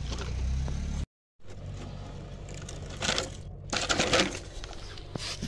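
Plastic toy dump truck rolling and scraping along a stone slab, then clattering against a plastic bucket as it is pushed in, with two short bursts of rattling about three and four seconds in.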